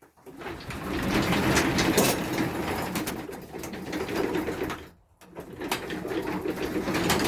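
Sectional garage door being lifted by hand, its rollers running along the steel tracks, with a brief stop about five seconds in. The door is being checked for balance on a newly re-tensioned spring.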